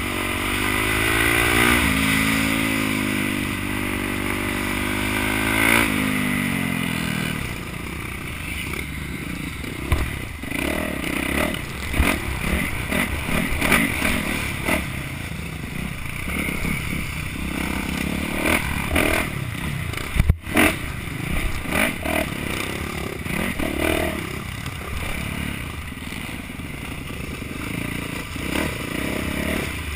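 Supermoto motorcycle racing, heard from the rider's helmet: the engine revs up and holds for the first several seconds, then drops off about six seconds in. After that the engine comes in uneven bursts under many irregular knocks and rattles as the bike crosses the dirt section.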